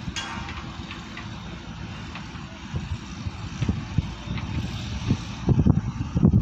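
SANY SY215C-9 excavator's Mitsubishi diesel engine running steadily under load as the machine digs and swings. Louder low rumbles come in near the end.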